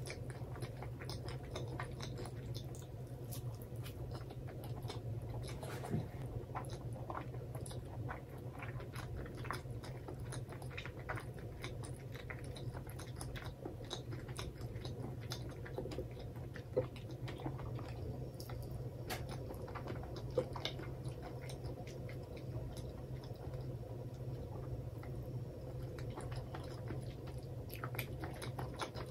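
Close-miked chewing of a mentaiko rice ball: a stream of small, sharp wet mouth clicks and smacks, a few louder than the rest, over a steady low hum.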